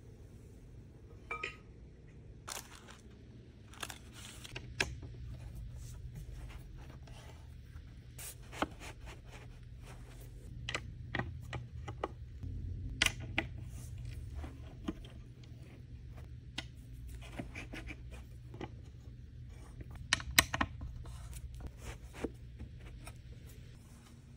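Hand-assembly of a metal-framed table: steel bars knocked and scraped against the table's panel and bolts turned with an Allen key, making scattered small clicks and scrapes. A few louder knocks come past the middle.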